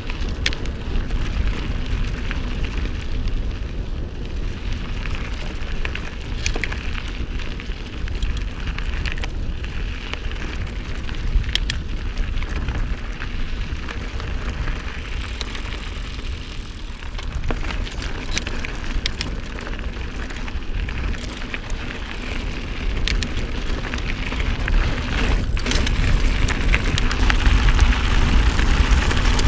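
Wind rumbling on the microphone as a mountain bike rides over a dirt and gravel trail, with scattered clicks and rattles from the tyres and drivetrain. It gets louder near the end.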